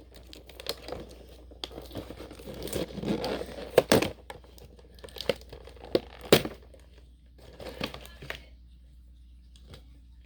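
Action-figure packaging being handled and torn open: crinkling and tearing with a few sharp snaps, the loudest about four seconds in and again about six seconds in, then quieter for the last few seconds.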